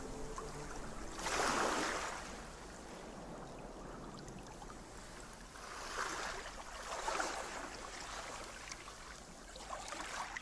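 Ocean waves washing in: a rushing surge at about a second and a half, then several more swells from about six seconds on.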